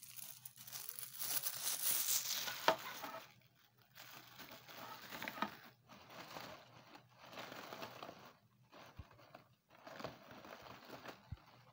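Plastic packaging crinkling and rustling in irregular bursts as cellophane-wrapped kitchen utensils are handled, with a sharp click about two and a half seconds in.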